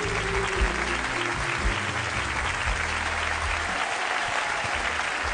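Studio audience applauding at the end of a song, with the last of the music's low sustained notes and a few low thumps still sounding under the clapping.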